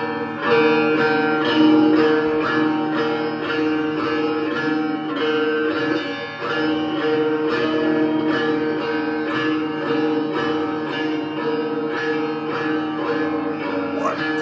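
Instrumental music: plucked string notes in a steady pulse, about two a second, over a sustained drone. It starts suddenly.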